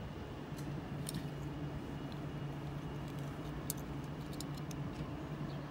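Steady low electrical hum from DC fast-charging equipment as a charging session begins, with a few faint clicks.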